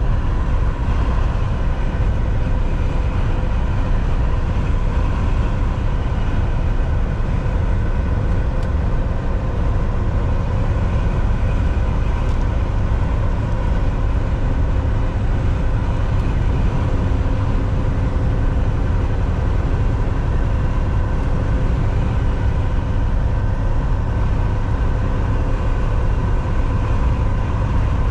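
Semi-truck's diesel engine running at a steady speed under road and tyre noise: a constant low rumble with an unchanging hum, as at highway cruising.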